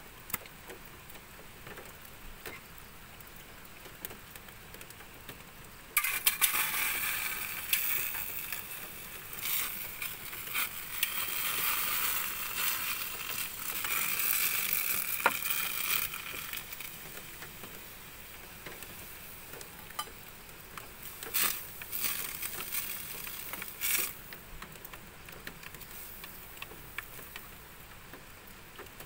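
Food from a can sizzling as it hits a hot stainless pan on a portable gas stove. It starts suddenly about six seconds in and goes on for about ten seconds before dying down, with two short sizzles later as the food is stirred.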